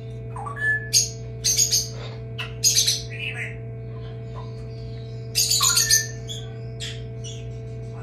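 Hatchling Moluccan cockatoo squawking from its shell: short, harsh calls in quick groups, over the steady hum of the incubator's fan.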